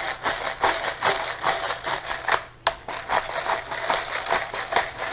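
Pepper grinder being twisted by hand, grinding black peppercorns: a fast, uneven run of gritty crunching clicks.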